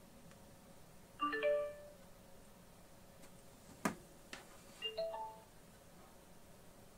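Wuzhi ZK-TB21 Bluetooth amplifier playing its prompt chimes through its speakers: a short rising jingle of notes as it powers on, then about four seconds later a second short rising three-note jingle as the phone connects over Bluetooth. A single sharp click comes between the two chimes.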